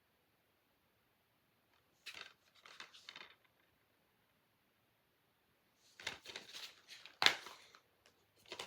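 Plastic movie cases being handled on a shelf: a short run of scraping and rustling about two seconds in, then more scraping a few seconds later with one sharp plastic clack.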